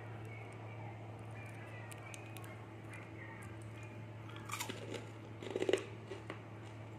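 Crunchy caramel popcorn crunching and crackling in two short spells, about four and a half and five and a half seconds in, the second the louder, over a steady low hum.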